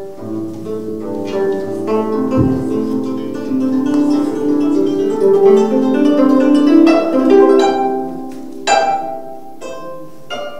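Gayageum (Korean plucked zither) playing a slow melody, its plucked notes ringing on and overlapping, with a couple of sharp, louder plucked accents near the end.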